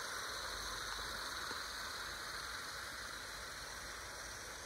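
OO gauge model train running on garden track: a steady rushing noise that slowly fades as it moves away.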